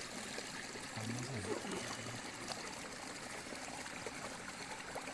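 Steady running water of a stream, a continuous even rush with a trickling edge.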